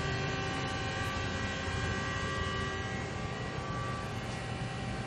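Steady machinery hum with a low rumble and several steady whining tones, unchanging throughout.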